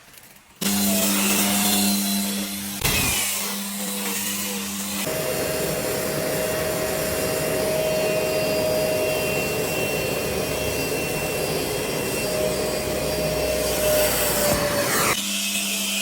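Vacuum cleaner switching on about half a second in and running steadily. Its tone changes about five seconds in and changes back near the end.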